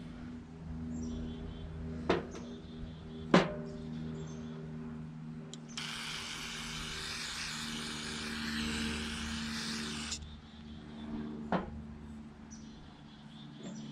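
Aerosol carburetor cleaner spray hissing in one steady burst of about four seconds that starts and stops abruptly, near the middle. Around it are a few sharp clicks of small metal carburetor parts being handled.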